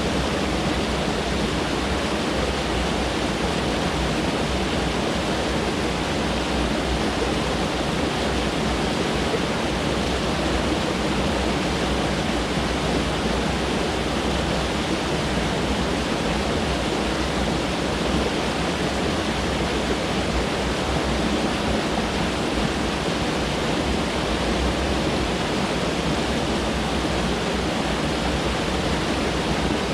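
Mountain stream rushing steadily over rocks, a constant even roar of water.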